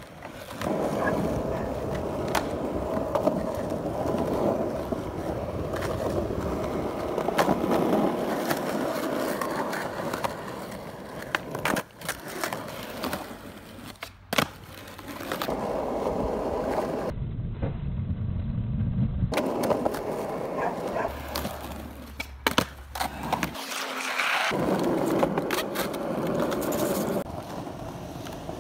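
Skateboard wheels rolling over rough concrete ditch banks, a steady grinding rumble. Sharp clacks cut through it several times as the board strikes and lands on the concrete during tricks.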